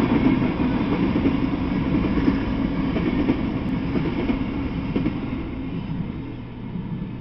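Freight train of tank cars rolling past on the rails, its noise dropping off as the last car clears about five seconds in.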